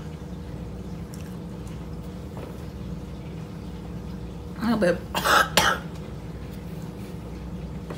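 A person coughing and clearing their throat, a short cluster of harsh bursts a little past halfway through, over a steady low room hum.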